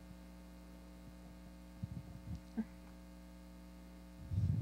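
Steady electrical mains hum from the sound system between spoken phrases, with a few soft low thumps in the middle and a louder low thump near the end.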